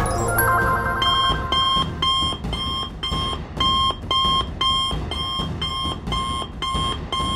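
Electronic alarm beeping in a quick even rhythm, a little over two high beeps a second, after a short electronic chime about a second in.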